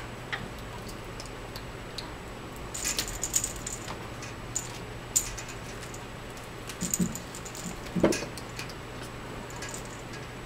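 Kittens playing with a toy dangling on a string over a tile floor: scattered bursts of light clicking and rattling, with a soft thump about eight seconds in.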